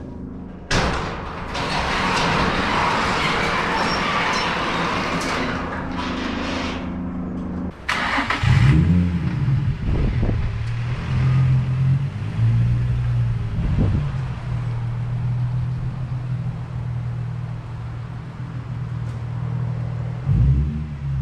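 A car's engine idling with a steady low note and several short revs, after about seven seconds of loud, even rushing noise. The car is a Nissan 350Z with its 3.5-litre V6.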